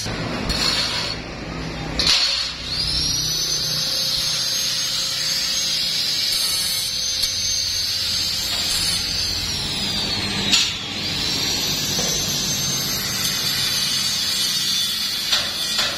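Electric hand-held power tool, most likely an angle grinder, working steel sheet: its high whine rises as it spins up, holds steady, winds down about ten seconds in, then spins up again and runs until near the end.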